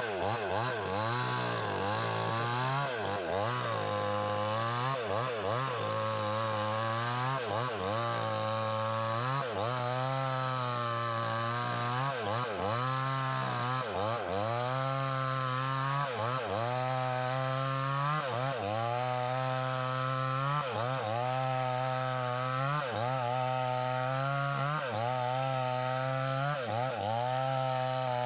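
Gasoline mini chainsaw with a 20-inch bar cutting wood, its two-stroke engine running at high speed. The pitch dips and recovers about once a second as the chain bites in under load.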